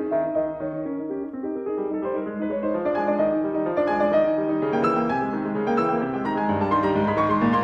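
Background piano music, a melody over sustained notes.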